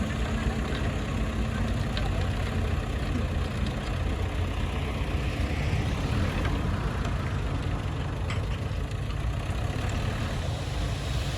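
Bulldozer's diesel engine running steadily with a deep drone, with a couple of faint clicks about two seconds in and again past the eight-second mark.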